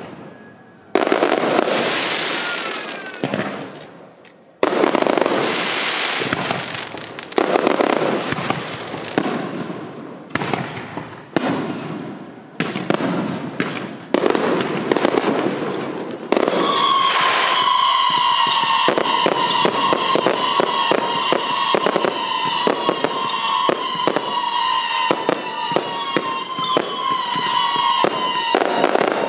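Aerial fireworks shells bursting one after another, each boom trailing off in a fading crackle. About halfway through, a dense barrage of rapid pops begins, over a steady whistling tone that slowly sinks in pitch.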